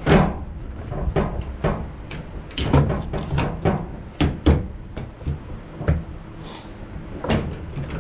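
Irregular knocks and clunks, about a dozen over several seconds, the loudest right at the start and a cluster in the middle, over a low rumble.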